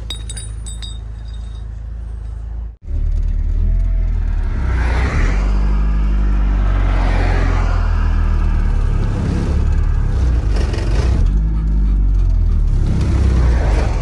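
A motor vehicle's engine running steadily, with a break about three seconds in, after which it is louder.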